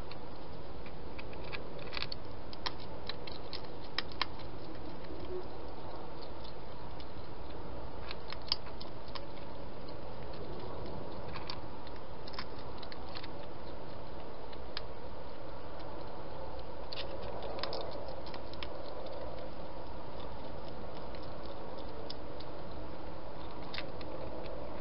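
Wild European hedgehog eating at a dish, making scattered small clicks and crunches of chewing over a steady hiss.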